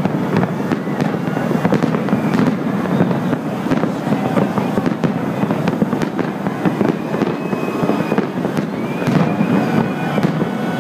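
Fireworks display going off non-stop: a dense run of bangs and crackling with no break, and faint whistling tones now and then.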